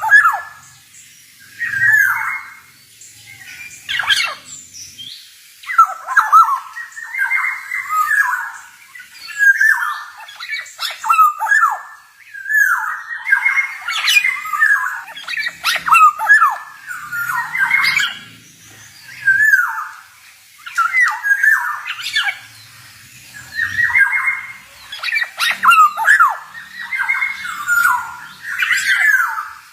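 Male black-naped oriole (kepodang) singing: short, sharp phrases of quick rising and falling notes, one every second or two, with brief gaps between.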